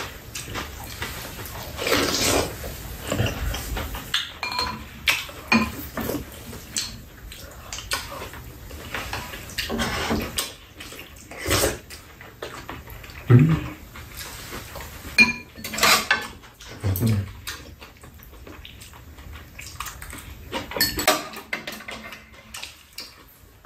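Spoons and metal chopsticks clinking and scraping against bowls, a frying pan and a metal serving tray while two people eat, in irregular short clicks with brief pauses.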